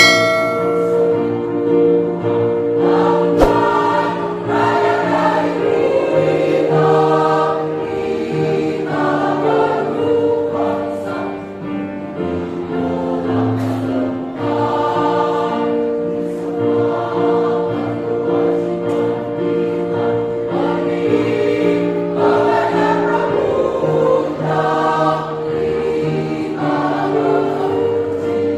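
Choir singing, several voices holding long sustained chords that change together.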